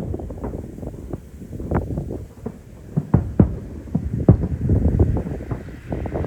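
Aerial fireworks shells going off in a rapid, irregular barrage of low booms and thuds over a continuous rumble. The biggest bangs come about three seconds in and again a second later.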